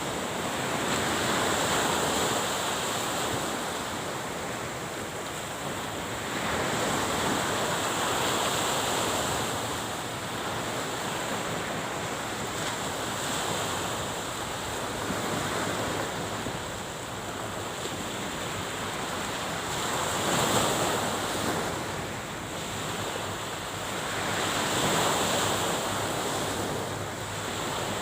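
Sea waves washing onto the shore, the surf swelling and fading every few seconds, with wind noise on the microphone.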